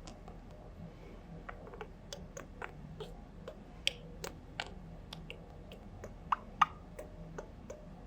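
Budgerigar making quick, irregular popping and clicking sounds, with two louder pops in quick succession about six seconds in.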